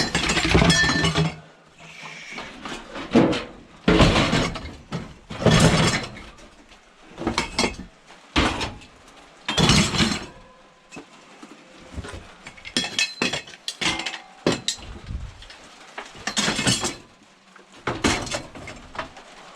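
Scrap metal items clanking and clinking as they are handled and stacked, a string of separate crashes every second or two, some ringing briefly.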